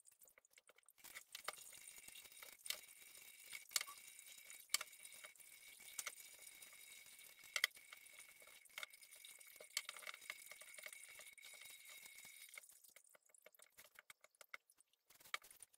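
Hands kneading flour dough for dumplings in a white baking dish: faint squishing, with irregular light knocks against the dish about once a second.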